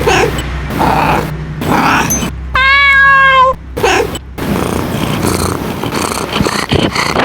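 Domestic cat meowing in a string of short calls, with one long, clear meow about two and a half seconds in.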